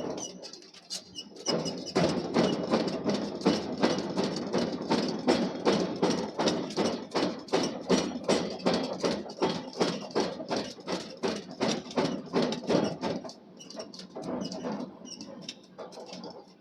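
Power hammer pounding hot steel in a rapid, even rhythm of about three to four blows a second over a steady machine hum. The blows start about a second and a half in and fade out after about thirteen seconds.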